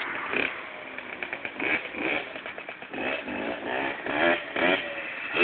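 Small dirt bike engine revving, its pitch rising and falling over and over as it is ridden around.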